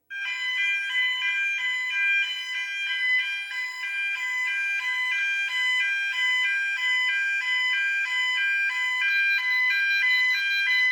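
Building's electronic fire alarm sounder going off, a rapid warble of alternating tones that starts suddenly and cuts off at the end. This is the alarm that the acoustic door holder listens for before it releases the door to close.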